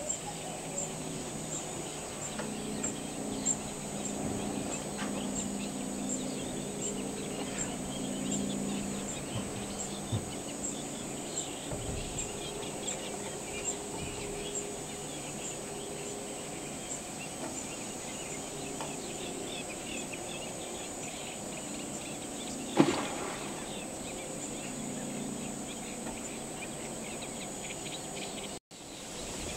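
Wetland outdoor ambience: many small bird chirps and calls over a steady high-pitched hum and a low hum, with one sharp knock about 23 seconds in and a brief dropout near the end.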